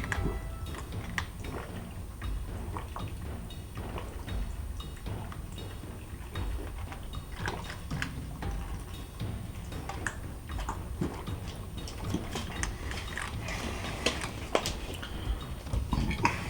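A man gulping green tea from a half-liter plastic bottle: irregular swallows with small clicks and crackles from the bottle, getting busier near the end.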